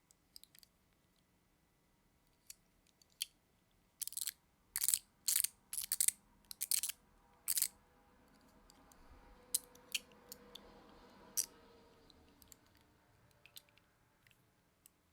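Small metal fidget tops in zirconium and copper being handled, their parts clicking and clacking against each other. A quick run of sharp clacks comes about four to seven seconds in, then a faint steady hum in the middle with a few more clicks.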